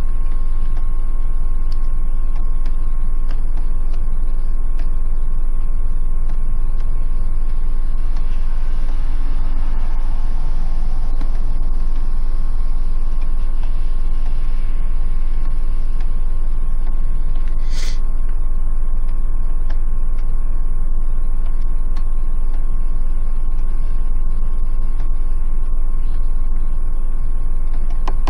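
Loud, steady low rumble and electrical-sounding hum with a few fixed tones, unchanging throughout, with one sharp click a little past the middle.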